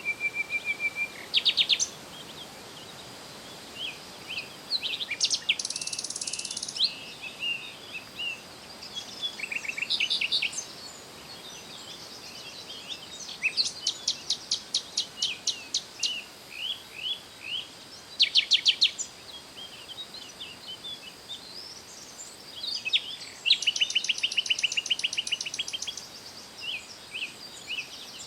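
Songbirds singing and chirping in short phrases, several of them fast trills of rapidly repeated notes, with a faint steady high-pitched tone underneath.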